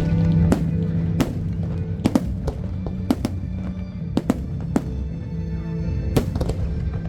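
Aerial fireworks bursting in a string of sharp bangs, about a dozen in seven seconds, some in quick pairs, over loud music with long held tones.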